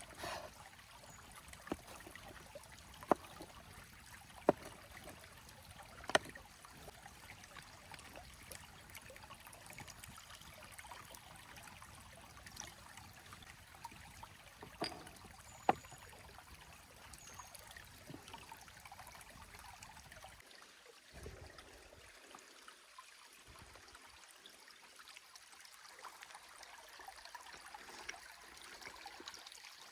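Stream running steadily, with a few sharp clicks in the first half.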